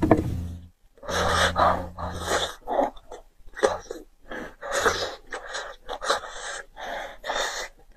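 Wet slurping and sucking of soft braised beef bone marrow, with chewing, in a run of short irregular bursts.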